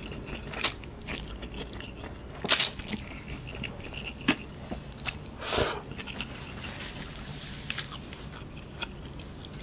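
Close-miked eating of Mi Sedaap instant noodles by hand: strands slurped into the mouth and chewed, with a few short, sharp slurping noises, the loudest about two and a half seconds in.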